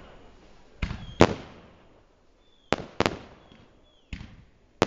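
Aerial firework shells bursting: about six sharp bangs in pairs a fraction of a second apart, each trailing off in a short echo.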